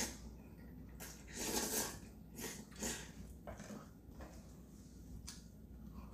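Jajangmyeon (black-bean noodles) being slurped and eaten with chopsticks: a longer slurp about a second in and a few shorter ones, with a couple of light clicks of chopsticks on the bowls.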